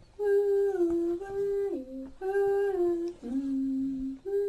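A voice humming a slow, simple wordless melody: held notes stepping down in pitch, in short phrases of about two seconds with brief breaks between them.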